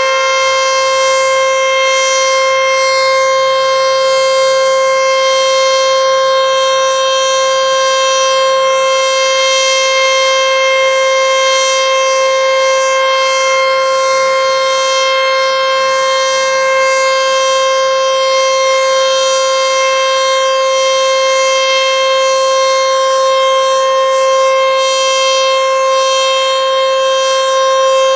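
ACA Screamer S-5 outdoor warning siren sounding a loud, steady tone held at one pitch, with no rise, fall or fading.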